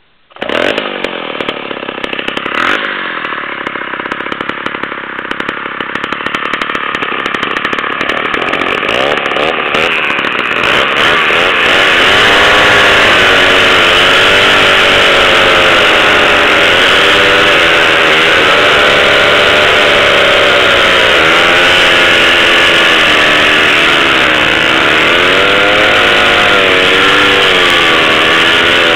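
Two Pioneer chainsaws, a 650 and a 620, running at full throttle and cutting through logs side by side. The sound begins suddenly about half a second in and grows louder over the first twelve seconds, then holds steady. The engine pitch wavers up and down as the saws bog and recover in the cut.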